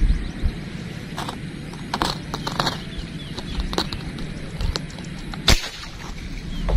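Air rifle fired once: a single sharp crack about five and a half seconds in, the loudest sound here.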